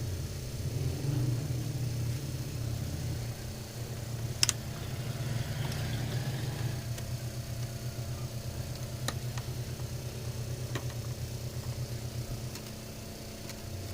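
A motor running with a low, rapidly pulsing rumble and a steady hum, fading out near the end. A few sharp clicks, the loudest about four and a half seconds in.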